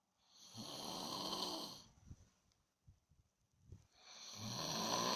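A panda snoring: two long snores, the second starting about three and a half seconds after the first.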